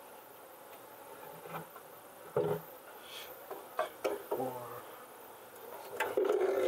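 A metal hive tool and hands prying at and lifting wooden frames in a wooden hive box: a few short knocks and scrapes of wood, the loudest near the end.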